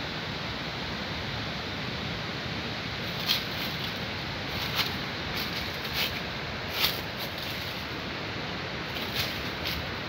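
Walking through forest undergrowth: about six short, irregular crackles of dry leaf litter and twigs underfoot and against the brush, over a steady hiss.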